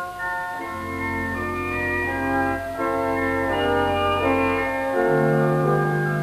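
Organ music: slow, sustained chords that change every half second to a second over a held bass note.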